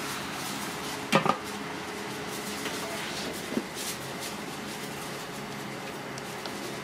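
Kitchen clatter: two quick ringing clinks of dishes or metal cookware just after a second in, and a lighter knock a couple of seconds later, over steady background noise.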